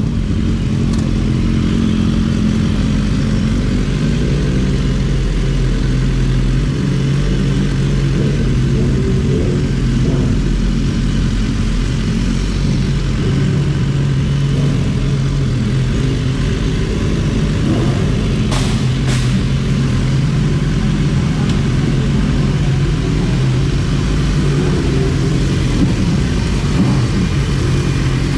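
Sport motorcycle engine running at low revs with a steady low note while the bike rolls slowly. A couple of short sharp clicks come about two-thirds of the way through.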